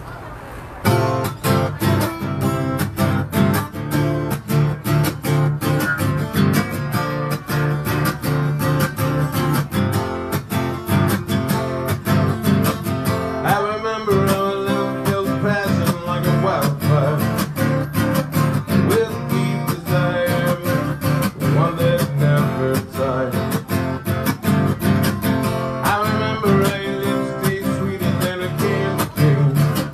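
Acoustic guitar strummed in a steady rhythm, starting about a second in. A man's singing voice comes in over it about halfway through.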